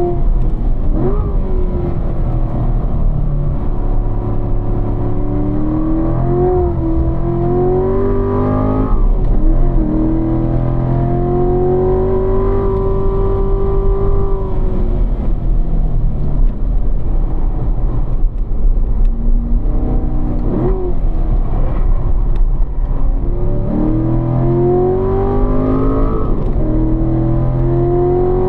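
2015 Corvette C7's V8 engine pulling hard in third gear at high revs, heard from inside the car on a fast track lap. Its note rises under acceleration and drops back as the throttle comes off for corners, several times over.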